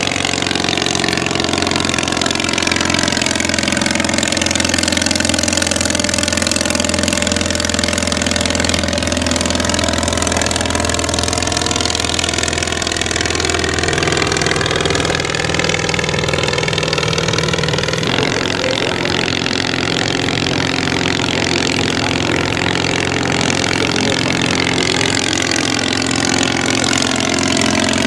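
The English Electric Wren's small ABC flat-twin engine running steadily in flight, with a swirling, phasing sound as the aircraft moves overhead. Its note shifts about two-thirds of the way through.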